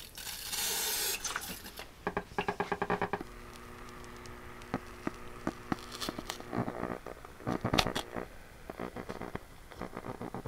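A hand spray bottle hisses water onto a blown speaker cone for about a second. Wet crackling, clicking and squishing follow as the soaked, torn speaker is worked, with one sharp, loud click about eight seconds in.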